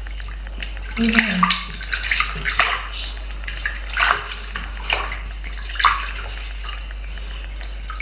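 Shallow bathtub water splashing in a few short, irregular bursts as a wet kitten is washed by hand, water scooped and poured over its back.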